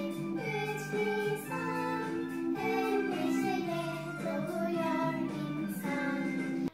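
Children's song: a child's voice singing over instrumental backing.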